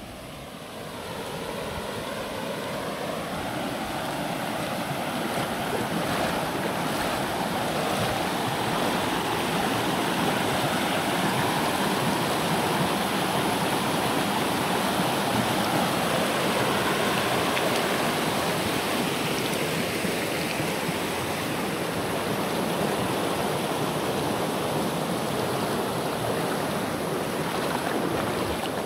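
River water rushing over a shallow riffle of white water: a steady noise that grows louder over the first few seconds and then holds.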